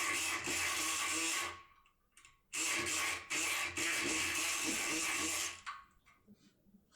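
Multipick Kronos electric lock-pick gun running in two bursts: a steady buzz for about a second and a half, a pause, then another buzz for about three seconds that cuts off sharply.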